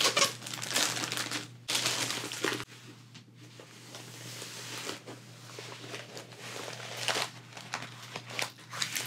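Clear plastic packaging crinkling and rustling as a rolled diamond-painting canvas is slid out of its plastic sleeve and unrolled with its plastic cover. The crinkling comes in irregular handling strokes, loudest in the first couple of seconds and again briefly near the end, and softer in between.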